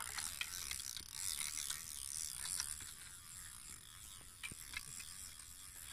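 Spinning fishing reel giving off a fine ratcheting whir as line runs through it while a fish is played, loudest over the first few seconds and then fading, with a few small clicks.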